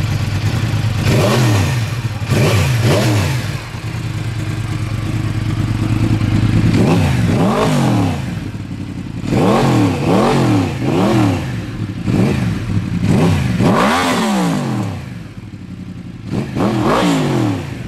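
Yamaha YZF-R1's crossplane-crankshaft inline-four, through a Yoshimura exhaust, idling and blipped repeatedly on the throttle: about a dozen quick revs that rise and fall sharply, mostly in pairs and threes, with the idle settling between them.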